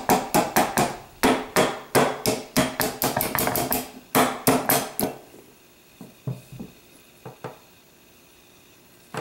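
A brass-faced hammer taps a steel hammer pin into a Norinco 213 pistol's hammer and sear housing, chasing the alignment drift out. The sharp metal taps come about four a second for about five seconds, with two short pauses. A few softer clicks follow as the assembly is handled.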